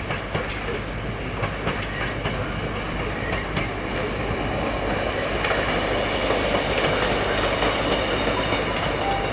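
Class 150 diesel multiple unit running over pointwork, its wheels clicking over the rail joints over a steady diesel hum. From about five seconds in, a louder steady rumble builds.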